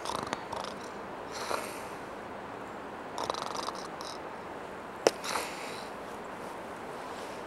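Quiet forest ambience: a steady faint hiss with a few short high chirps and one quick pulsing trill, like insects or small birds, and a single sharp click about five seconds in.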